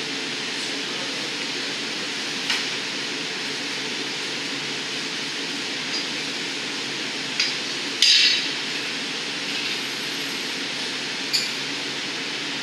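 Steady burner noise of a glassblowing hot shop's glory hole and furnaces, broken by about five sharp metallic clinks as a steel blowpipe and hand tools knock against the bench and pipe rests. The loudest clink, with a short ring, comes about eight seconds in.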